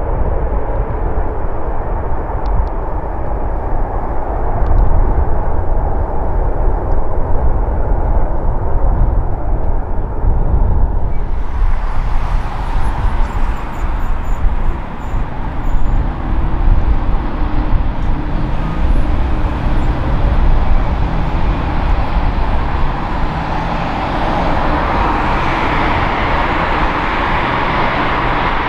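Jet engine noise from a KLM Boeing 737 on the runway just after landing: a deep, steady rumble. About 11 seconds in it changes abruptly to the engines of a taxiing KLM Boeing 787 Dreamliner, a broader rushing whine that grows louder near the end as the jet comes closer.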